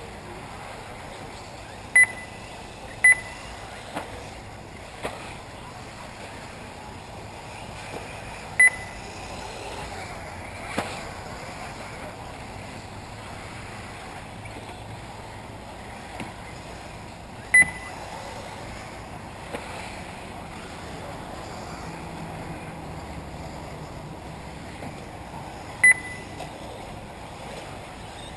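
Short, sharp electronic beeps, five of them at irregular intervals, from the race's lap-timing system as electric 1/8-scale buggies cross the timing line, over a steady outdoor background with a few faint ticks.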